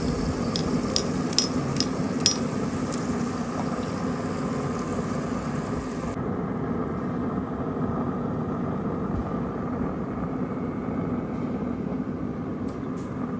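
Steady low hum of a Traeger Ranger pellet grill's fan running, with a few light clicks in the first couple of seconds.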